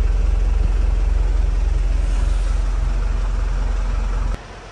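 Hino Dutro Euro 4 truck's diesel engine idling smoothly and steadily, heard inside the cab with the AC running. The sound cuts off abruptly near the end, leaving a faint steady hiss.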